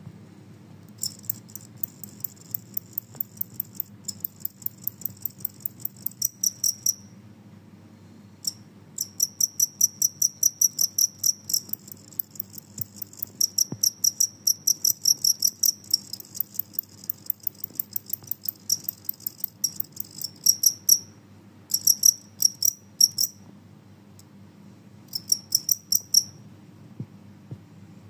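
Genggong cricket, a large field cricket, chirping noisily: sharp high-pitched pulses about four a second, in several long runs broken by short pauses. This is the stridulation call of a male rubbing its raised wings together.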